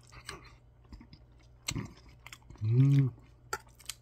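Close-up chewing of a mouthful of curry rice, with scattered light clicks of a spoon against a steel bowl. About two and a half seconds in comes a short hummed "mmm", the loudest sound, rising and falling in pitch.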